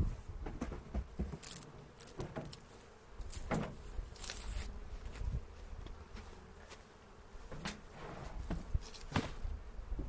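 Honey bees buzzing around an open hive, with scattered clicks and knocks throughout.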